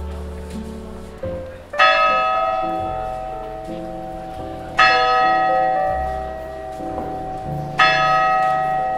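Clock-tower bell striking noon: three strokes about three seconds apart, each ringing on and slowly fading.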